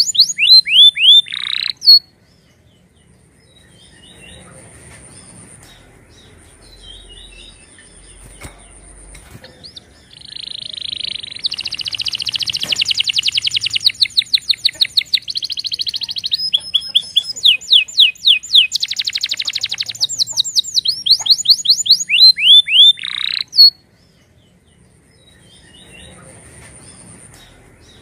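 Domestic canary singing: phrases of repeated down-sweeping whistled notes and very fast rattling trills, in a short burst at the start and a long stretch from about ten seconds in until near the end. Between the phrases there is only a faint high thin trill and distant chirps.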